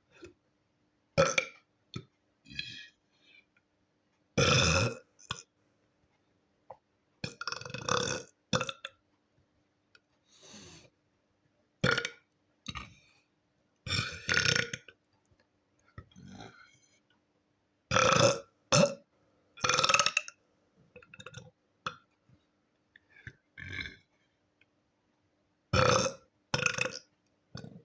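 A boy burping over and over: a long series of burps, some short and some lasting about a second, with brief pauses between them.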